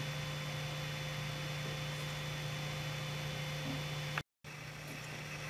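Steady low hum with a faint hiss from an idle M3D 3D printer just after a finished print, with a thin steady whine over it. The whine stops about four seconds in, at a moment of dead silence, and the hum then carries on slightly quieter.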